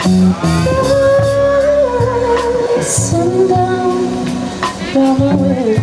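Live blues-rock band with a female lead singer holding long notes with vibrato over electric bass, guitar and drums, with cymbal hits throughout.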